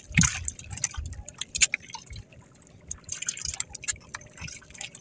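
Sea water splashing and lapping against the hull of a small outrigger boat in uneven, irregular bursts, with scattered small drips and clicks.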